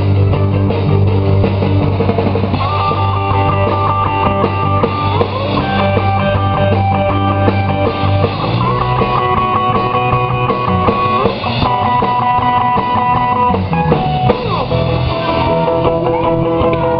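Live musical-theatre pit band playing an upbeat rock-and-roll number, with guitar, drum kit and keyboard and long held chords over a steady beat.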